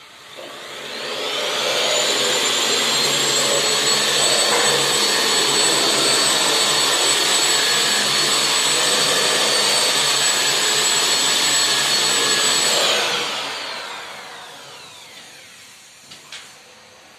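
Electric ceiling sander with a dust-extraction hose spinning up over about two seconds, running steadily with a high whine while sanding a ceiling, then winding down near the end.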